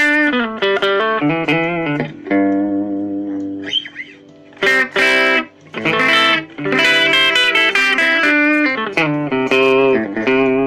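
Mavis MST-600 electric guitar played on its bridge pickup: picked notes and chords with a chord left to ring in the middle, then short strummed chords and more phrases.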